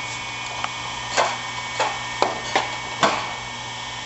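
Boat hoist frame parts being handled during assembly: about six separate short knocks and clinks as the beams and connector are moved and fitted together at the corner.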